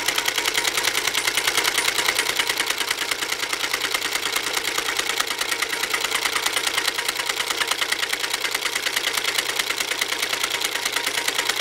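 Singer Featherweight 221 sewing machine running steadily at speed with an automatic buttonholer attachment, stitching a buttonhole: a fast, even mechanical clatter.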